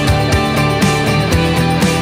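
Background music with a steady beat of about two beats a second over sustained pitched tones.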